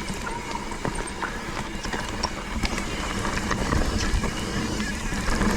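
Mountain bike rolling along a dirt trail: tyre noise and many small clicks and knocks as the bike rattles over bumps, under a steady rush of wind on the action camera's microphone.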